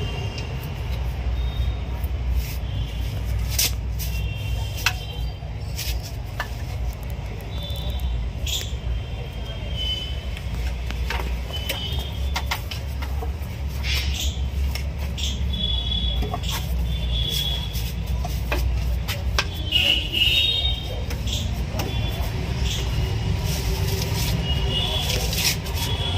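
Hand wrench working on bolts under a vehicle, giving scattered light metallic clicks and taps over a steady low rumble.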